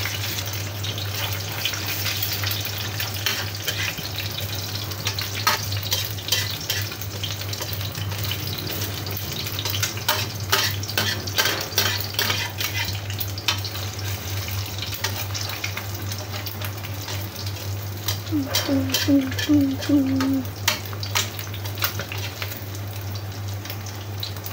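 An egg frying in hot oil in a wok, sizzling steadily. A spatula breaks and pushes the egg, scraping and tapping against the wok in runs of sharp clicks, mostly in the second half.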